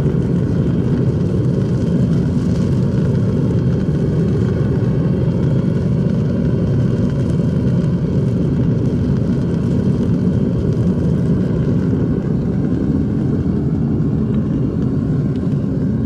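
Gas torch burning steadily with a continuous low rushing noise while it heats metal for melting.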